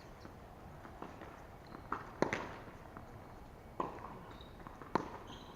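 Tennis rally: a tennis ball being struck by rackets and bouncing on the court. There are four sharp pops, the loudest about two seconds in.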